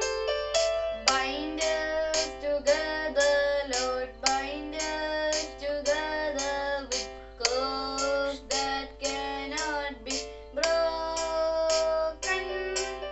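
A child singing a prayer song over an instrumental accompaniment of plucked, guitar-like notes.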